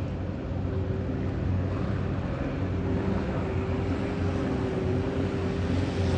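Boat engine running steadily, a low drone with a thin steady whine above it, over a haze of water and wind noise.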